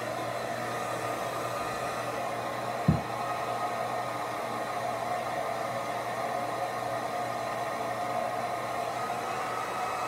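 Handheld hair dryer running steadily, blowing air. A single sharp knock about three seconds in.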